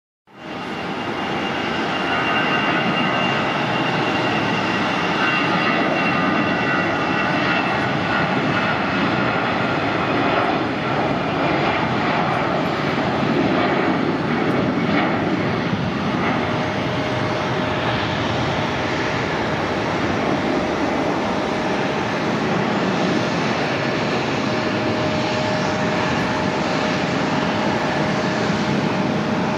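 Airbus A320-214's twin CFM56-5B turbofans at takeoff thrust: a loud, steady rush of jet noise through the takeoff roll, lift-off and climb-out. High whining tones sound over it through the first half and fade, and a steadier, lower tone comes in about halfway through.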